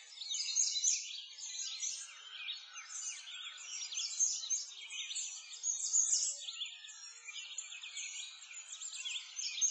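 Many birds chirping and singing at once, a dense chorus of overlapping short, high calls that swells and dips.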